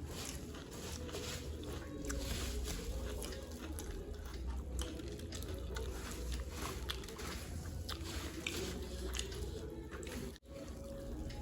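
People chewing and crunching puffed rice (muri) mixed with ghugni: many small crisp crackles and wet mouth sounds, broken by a momentary gap about ten seconds in.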